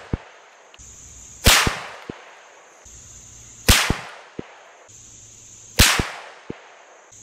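Three rifle shots from a Howa 1500 bolt-action chambered in 350 Legend, about two seconds apart, each a sharp crack followed by a couple of short low knocks.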